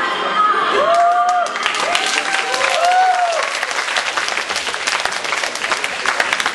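Audience applauding in a hall, the clapping swelling about a second and a half in. In the first few seconds, a few short tones rise and fall above the clapping.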